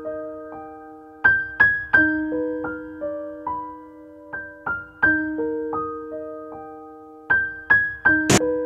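Piano music: a slow tune of single struck notes, each left to ring and fade.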